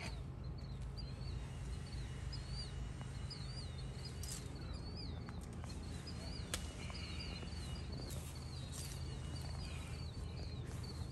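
A small bird chirping over and over, a few short chirps a second, over a steady low hum, with a sharp click about six and a half seconds in.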